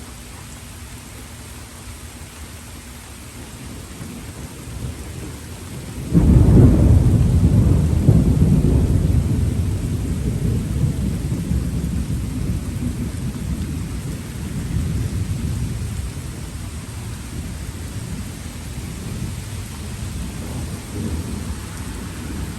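Steady rain with a sudden, loud clap of thunder about six seconds in, its low rumble slowly fading away over the following seconds.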